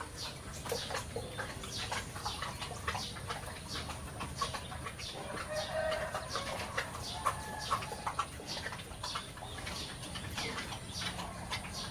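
Farmyard chickens clucking among chirping birds, many short calls in quick succession, with a longer call near the middle.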